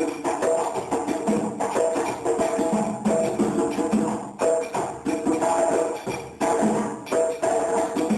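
Djembe and dun-dun drums playing West African traditional music together, a dense run of sharp hand strokes over a repeating drum pattern.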